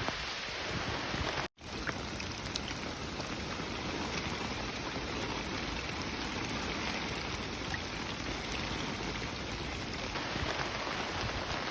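Heavy rain falling steadily, an even hiss of drops. It cuts out for an instant about a second and a half in.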